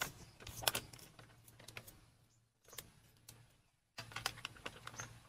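Scattered light clicks and taps of small hard objects, typical of things being poured or dropped into a bowl by hand, going quiet for a couple of seconds in the middle.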